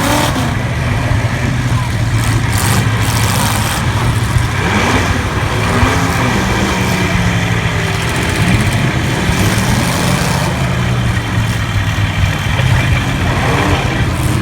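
Several demolition-derby cars' V8 engines running together as a steady low drone, with engines revving up and down in the middle.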